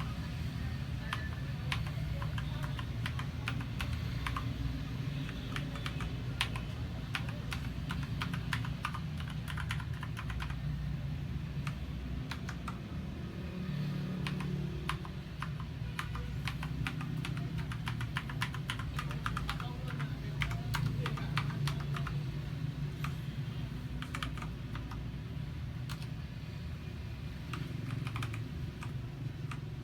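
Typing on a Royal Kludge RG928 mechanical keyboard with tactile Brown switches: rapid, irregular keystroke clacks over a steady low background rumble.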